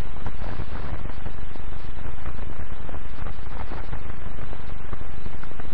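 Steady crackle and hiss of a worn 1940s optical film soundtrack, with dense fast clicks and no other clear sound.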